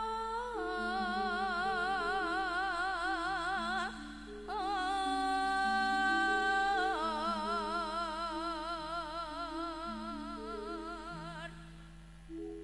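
A woman singing long held notes with wide vibrato in a Javanese vocal style, amplified through a PA, over sustained keyboard notes that shift in pitch step by step. The singing stops near the end and the keyboard carries on.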